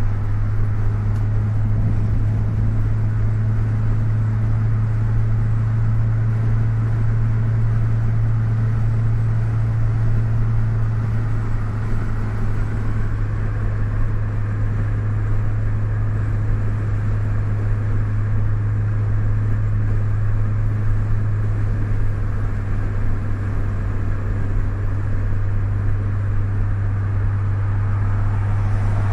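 Inside a car cruising on a highway: steady cabin noise of engine, tyres and wind, with a constant low drone.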